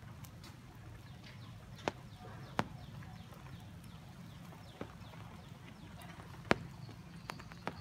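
About six sharp, separate taps or ticks at irregular spacing, the loudest about six and a half seconds in, over a steady low hum.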